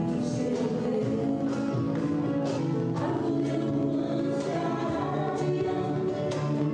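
A children's song with singing voices and instruments over a steady beat.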